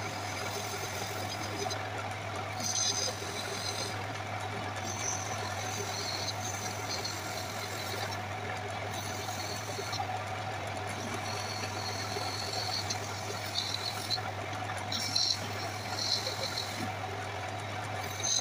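Electric wood lathe running steadily with a constant motor hum and the whirr of the spinning wooden workpiece, broken by short, high squeals that come and go every second or two as a turned wooden ashtray is pressed against the turning wood.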